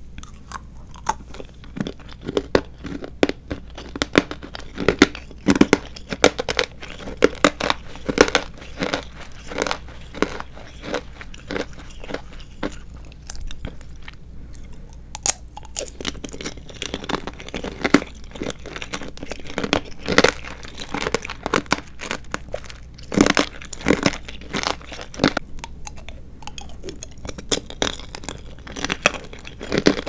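Close-miked eating sounds: slow chewing of a soft strawberry marshmallow, then the hard sugar shell of a candied strawberry crackling and crunching between the teeth in many sharp clicks. The eating is kept deliberately slow and gentle.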